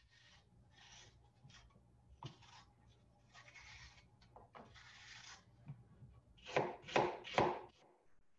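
A kitchen knife peeling and paring apple in the hand, with soft rasping scrapes of the blade along the fruit. About six and a half seconds in come three louder cuts in quick succession as the knife slices through the apple onto the cutting board.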